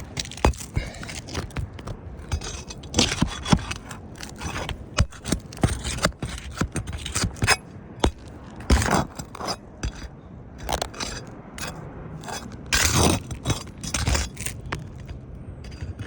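Asphalt roof shingles being worked loose to remove one for a repair: irregular scraping and clicking, with a few louder scrapes.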